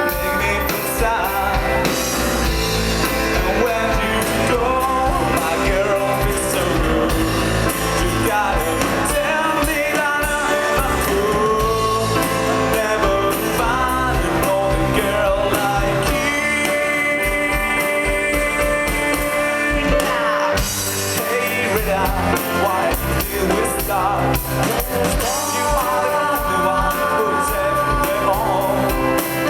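Rock music with a singing voice, playing without a break.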